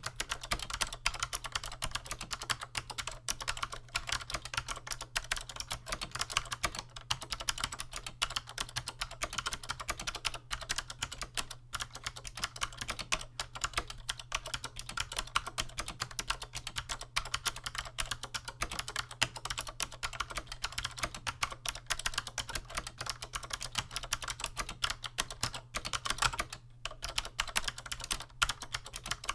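Continuous fast typing on a vintage Chicony KB-5581 keyboard with SMK 2nd Gen "Monterey" clicky switches and PBT keycaps: a dense, steady stream of light, crisp clicks.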